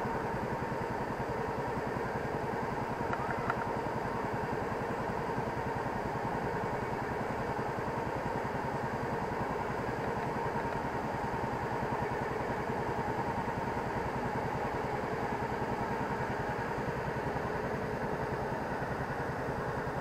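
Small riverboat's engine running steadily at cruising speed, an even rapid chugging with no change in pace.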